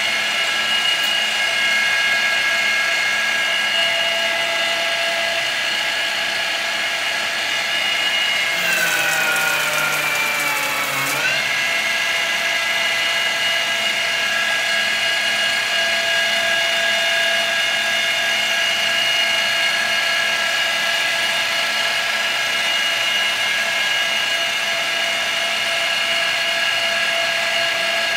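TOS FN20 milling machine running under CNC with a steady, multi-tone spindle whine while a Tungaloy face mill dry-cuts a small part. About eight seconds in, a harsh cutting hiss joins and the whine sags in pitch for about three seconds before snapping back up.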